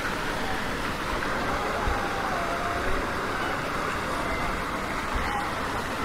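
Steady street ambience of road traffic passing along a city street.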